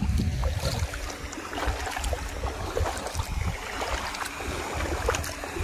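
Footsteps wading through shallow water, each step sloshing and splashing at an irregular pace, over a low wind rumble on the microphone.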